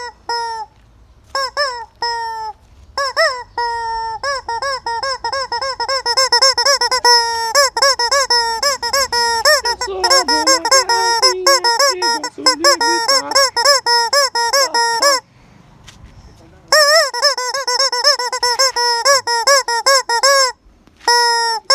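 Rubber squeaky chicken toy squeezed over and over, making a fast run of short honking squeaks several times a second, with a pause of about a second and a half before it starts up again.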